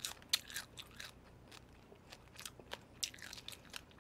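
Close-up chewing of cooked shrimp: faint, irregular small crunches and wet clicks of the mouth, a little busier in the first second and again about three seconds in.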